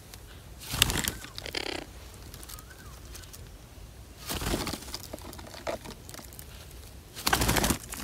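Red-breasted parakeets flying in and landing: a few short bursts of wing flapping and harsh calls, spread a few seconds apart.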